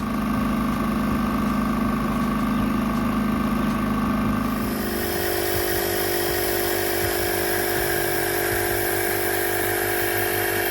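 Engine running steadily at idle; its sound changes abruptly about five seconds in.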